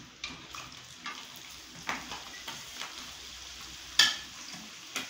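Chopped onions and curry leaves sizzling as they are scraped with a metal spoon from a steel bowl into hot oil in a kadai, with scattered scrapes and taps of the spoon on the bowl and a sharp metallic clink about four seconds in.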